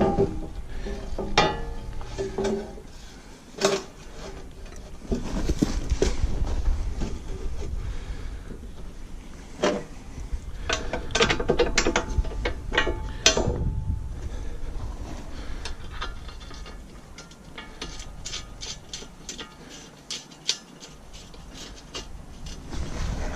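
Hand tools and steel attachment parts clanking and clicking at irregular intervals, with runs of quick clicking near the middle and again a few seconds later.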